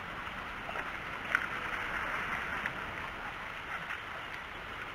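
Steady outdoor background hiss, with a few light clicks and one sharp click about a second and a half in.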